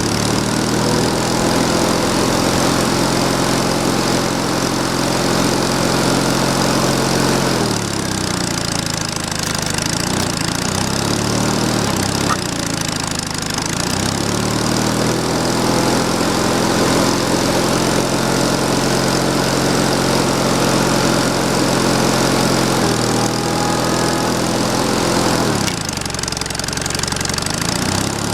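A small engine running steadily under load, its pitch sagging and recovering three times as it works.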